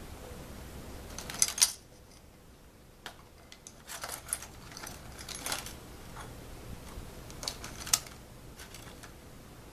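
Scattered clicks and light knocks of small hard items being handled on a workbench, with the sharpest pair about a second and a half in and another near the end.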